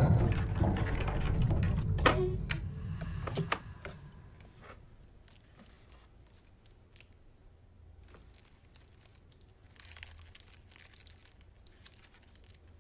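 A loud low drone cuts off abruptly about three and a half seconds in. After it come faint crinkles and small clicks as a foil candy wrapper is handled and unfolded.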